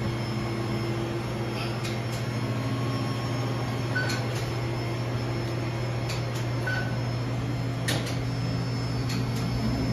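Steady low hum of running machinery and fans in a mechanical room, with two short faint high beeps about three seconds apart and a few light clicks.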